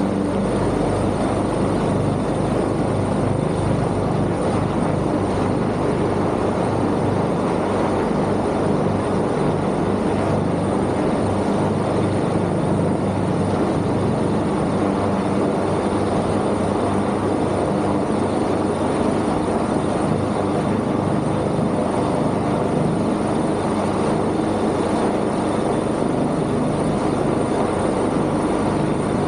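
Steady, continuous drone of a helicopter's rotor and turbine engines.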